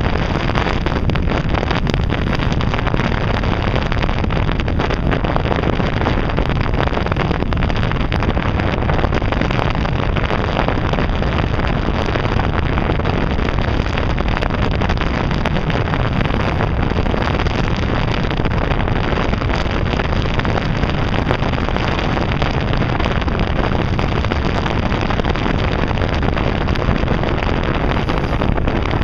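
Steady wind rushing over the microphone on the deck of a moving ferry, mixed with the low noise of the boat's engine and the water.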